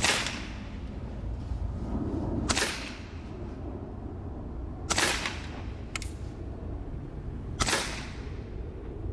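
Evanix Viper .30 caliber semi-automatic PCP air pistol firing four shots about two and a half seconds apart, each a sharp crack with a short ring after it. A fainter click comes between the third and fourth shots.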